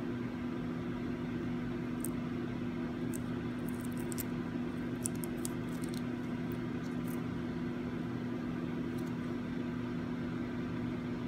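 Steady low electrical or fan hum, with a few faint, light clicks scattered through it.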